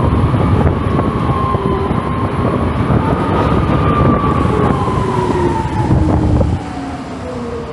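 Gogoro electric scooter's motor whine, rising in pitch as it speeds up and peaking about three seconds in, then falling as it slows. Heavy wind buffeting on the microphone, which drops away about six and a half seconds in.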